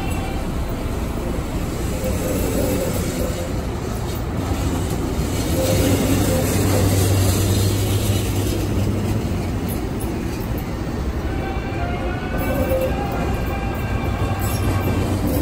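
Siemens P2000 light-rail train pulling away and rolling past: a steady low hum from the electric drive over wheel-on-rail running noise. Faint whining tones come and go near the start and again in the last few seconds.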